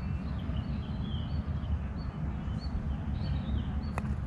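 Small birds chirping in short, evenly repeated notes over a low steady rumble. About four seconds in, a single sharp click: a putter striking a golf ball.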